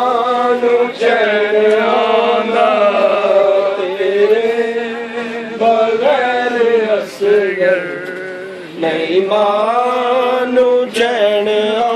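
A man's voice chanting a Punjabi noha, a Muharram lament, in long drawn-out wavering phrases with short breaks for breath between them.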